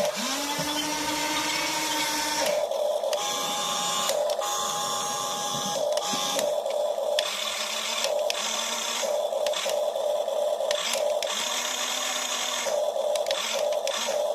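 HUINA RC excavator's small electric motors whining in a series of short runs, each rising in pitch as it spins up, over the toy's steady simulated engine sound from its speaker. The boom motor whines but the boom does not rise, which the owner takes as a sign of worn gears rather than a bad motor.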